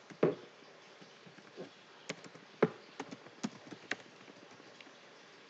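Typing on a computer keyboard: about a dozen irregular keystroke clicks, with louder ones about a quarter second in and about two and a half seconds in.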